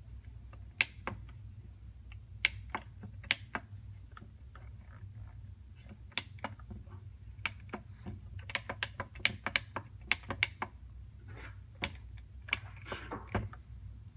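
Fingers tapping the plastic pads of a c-Loops loop sampler: irregular clicks, singly and in quick runs, over a steady low hum. Only the pads' own mechanical clicks are heard, with no loop playing back, as the unit is not working.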